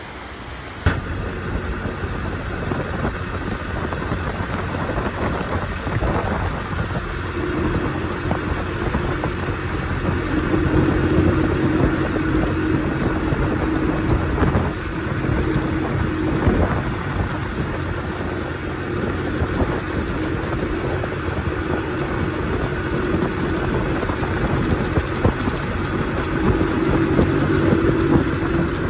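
A 50cc moped engine running steadily on the road, with wind and road noise around it, starting about a second in.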